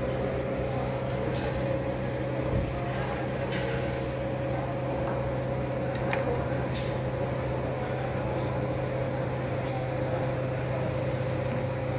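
Steady hum of an electric fan, a low drone with a higher steady tone above it, and a few faint clicks.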